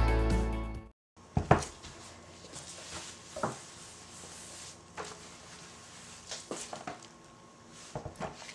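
Background music that cuts off about a second in, then a scattering of light knocks and clunks of soapmaking containers and a mold being handled and set down on a stainless steel worktop. The loudest knock comes about a second and a half in.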